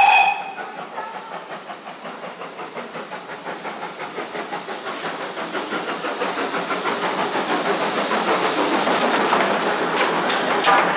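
A steam locomotive whistle gives a short blast. Then the steam hiss and rhythmic running sound of GWR 1500 class pannier tank No. 1501 build steadily louder as it draws close and passes, at about five beats a second, with sharp clanks of wheels over the rail joints near the end.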